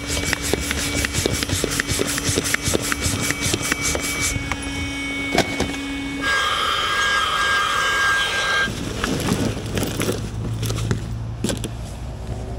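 Portable electric air pump running, its hose fitted to an inflatable packraft's valve: a steady motor whine with fast, even ticking. About six seconds in it shifts to a higher, hissier tone, and near nine seconds it drops to a lower hum.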